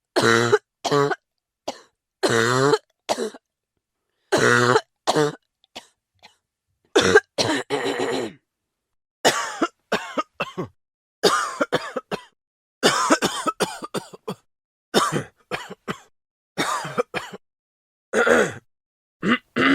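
A man coughing: bouts of short, dry coughs, several in quick succession, separated by brief pauses.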